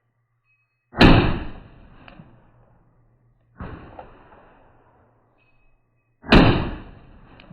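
Three gunshots about two and a half seconds apart, each with a long fading echo; the middle one is quieter.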